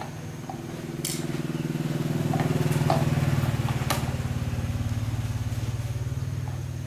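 Small motorcycle engine running steadily, growing louder over the first three seconds and then easing off slightly. Two sharp clicks stand out over it, about a second in and about four seconds in.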